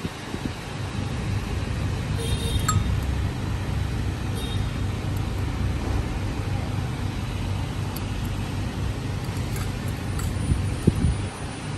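Steady low background rumble with a few light metallic clinks as stainless steel tubes are handled and fitted together.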